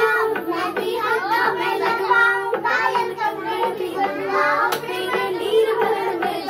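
Hindi devotional song about Bholenath's (Lord Shiva's) wedding playing: singing over a steady, held instrumental tone.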